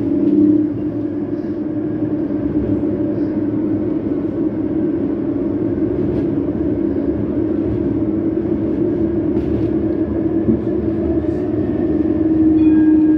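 Tram running along its rails, heard from inside the car: a steady rumble of the wheels on the track under a constant low hum. Near the end the sound swells a little and faint higher steady tones come in.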